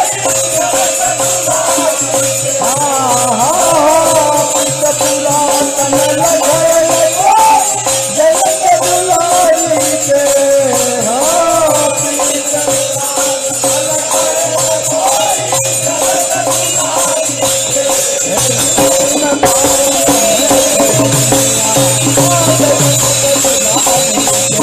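Devotional bhajan music from a group of men: singing over a steady held drone, with a hand drum keeping a regular beat and small metal cymbals jingling throughout.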